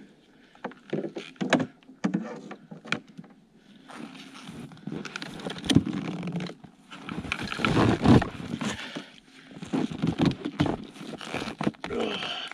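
Handling noise of bungee cords being stretched and hooked over a load of split firewood on a plastic sled: irregular knocks and clicks of wood pieces shifting, with scraping and rustling that is loudest about midway.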